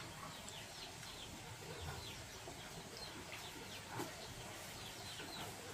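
Chickens peeping faintly: many short, high, falling peeps, several a second, with a soft knock about four seconds in.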